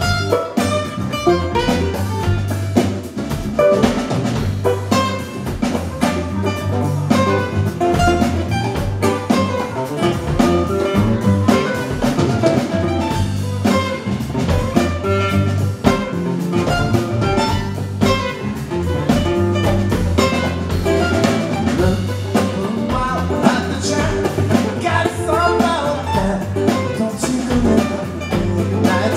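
Live acoustic band playing a song: two strummed acoustic guitars, electric bass and congas, with a steady hand-drum beat.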